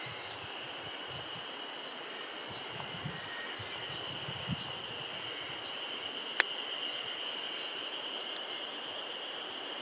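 Insects droning steadily at a high pitch over an even background hiss, with a few soft low thumps in the first half and one sharp click about six seconds in.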